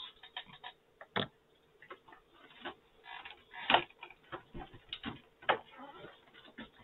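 Stiff clear plastic packaging crinkling and crackling in irregular clicks as it is pulled off toy accessories, with a few sharper snaps.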